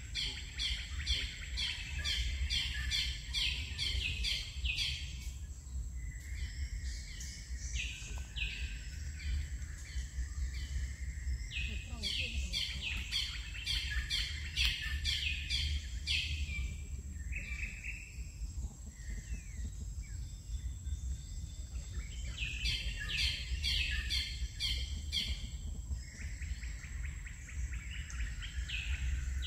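Birds chirping in bouts: runs of quick, repeated high chirps that stop and start several times, over a steady low rumble and a thin high whine.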